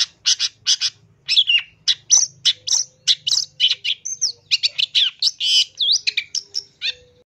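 Long-tailed shrike singing: a fast series of short, harsh chattering notes, about three a second, mixed with whistled upward and downward slides. It stops abruptly near the end.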